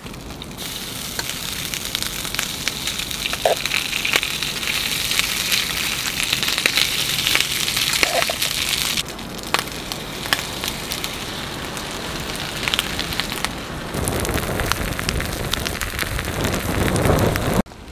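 Breaded camembert and rice frying in a pot-lid pan over a small camp stove: a steady sizzle full of fine crackles, strongest in the first half. For the last few seconds it gives way to a deeper rushing noise that cuts off suddenly.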